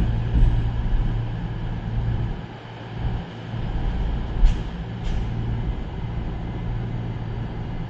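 CrossCountry Voyager diesel multiple unit's underfloor engines running as the train moves away, the drone fading. Two short sharp hissing sounds come about four and a half and five seconds in.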